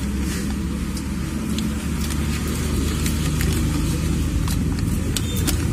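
A steady low engine rumble from a motor vehicle running nearby, with scattered light clicks and rustles from a paper food wrapper being handled.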